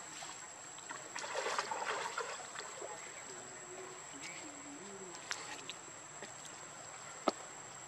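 Monkeys swimming and splashing in pool water, with a burst of splashing about a second in, faint voices in the background, and two sharp clicks in the second half.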